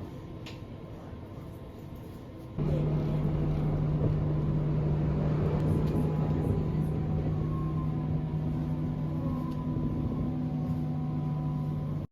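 A vehicle running with a steady low hum and a fainter high whine above it. The hum cuts in suddenly and much louder about two and a half seconds in, after a quieter stretch.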